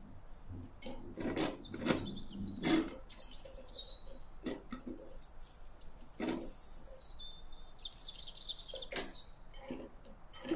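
A small metal spatula tapping and scraping in a tiny aluminium pan, a string of short knocks. Birds chirp in the background in two short bursts.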